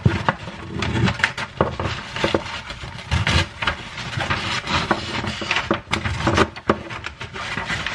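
Wrapping paper rustling and crinkling as a sheet is lifted and folded over a box, with a dense run of irregular crackles.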